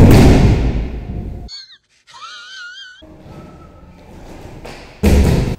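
A heavy thud as a body lands on a gymnastics crash mat, followed by a rush of air from the mat that fades over about a second and a half. A short warbling high tone follows, and a second landing thud comes about five seconds in.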